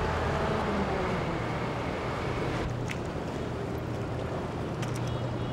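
Steady low engine hum from a naval warship under way, under a wash of wind and sea noise, with a couple of faint clicks about three and five seconds in.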